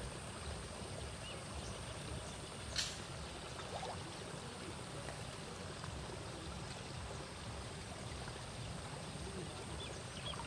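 Steady rush of flowing water, with one sharp click about three seconds in and a thin, steady high tone above it.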